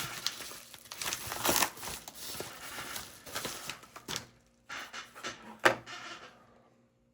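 Packaging being handled and unwrapped by hand: irregular crinkling and rustling with a few sharp clicks or taps, stopping about six and a half seconds in.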